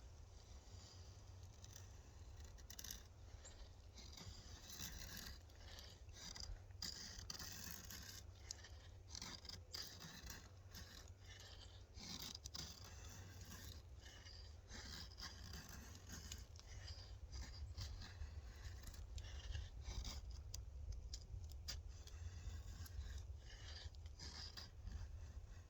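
Faint, irregular scraping with many light clicks, over a steady low hum.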